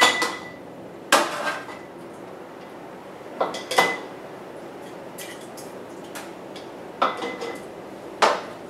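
Metal tongs and a spoon clinking against glass canning jars and a funnel as onions are dropped into the jars: about seven sharp clinks at uneven intervals, some ringing briefly.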